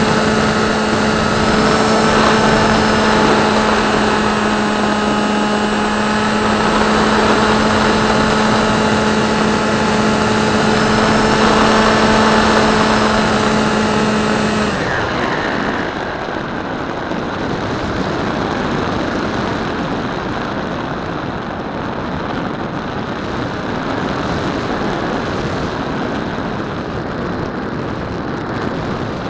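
RC foam plane's electric motor and propeller running with a steady whine, over wind rush on the onboard camera. About halfway through the motor cuts off and only the wind rush remains.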